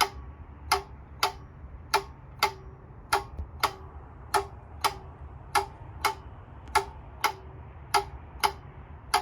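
Railroad crossing flasher relay clicking steadily, about one and a half clicks a second, as it alternates the crossing lights, over a steady low hum.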